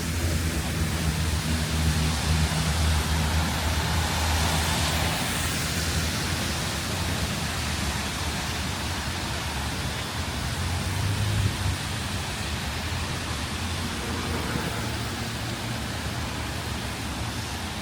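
Steady hiss of falling rain over city street traffic, with a passing vehicle's engine hum in the first few seconds and again around eleven seconds in.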